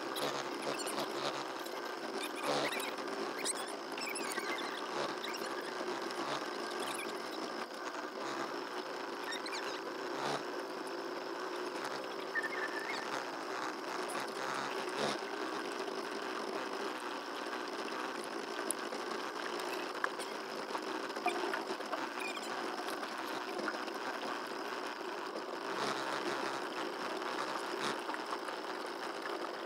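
Small boat motor running steadily with a high, buzzing drone that sounds like a fly.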